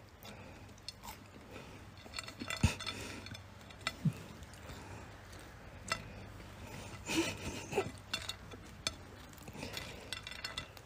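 Fingers picking french fries off a plate: scattered quiet clicks and light clinks against the plate.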